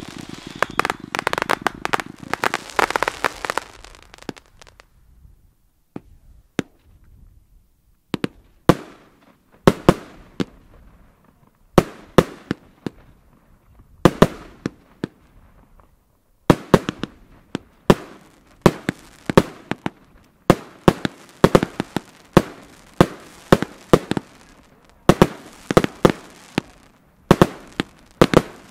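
Consumer firework batteries (cakes) firing. A dense run of crackling and bangs for the first few seconds, then a short lull with a few single reports, then a steady series of sharp bangs about one to two a second, each ringing out briefly.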